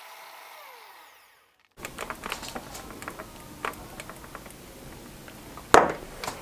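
Homend electric hand mixer's motor running, then winding down with a falling whine as it is switched off about a second in. After a short gap come light clicks and knocks as the mixer and its beaters are handled, with one sharp knock near the end.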